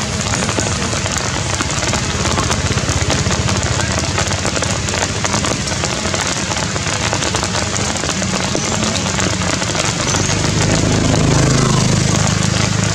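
Steady heavy rain: a dense hiss of drops on surfaces, over a low steady hum that grows louder near the end.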